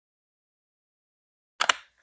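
A short clatter of hard clicks, from the Lego Duplo marble run, coming out of dead silence about one and a half seconds in.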